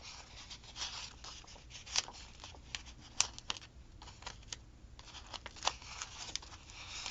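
Thin paper stickers being peeled from their sheet and pressed down on a planner page: soft paper rustles and small clicks and taps, with a quieter second about four seconds in.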